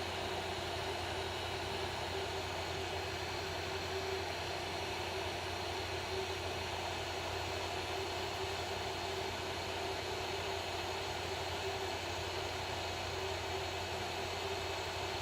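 Hot air rework station's blower running steadily: an even rush of air with a low steady hum, as it heats the solder pads of a surface-mount switch.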